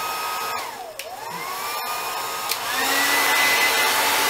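Hair dryer blowing hot air onto a tablet's edge to soften the screen adhesive. Its motor whine drops in pitch and dips about half a second in, then spins back up. After a click near the middle it runs louder at a higher pitch, switched up to more power.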